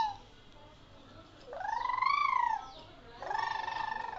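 A baby making two high-pitched vocal noises. The first, a bit over a second in, rises and then falls in pitch. The second, near the end, is held at one pitch with a buzzy, pulsing edge.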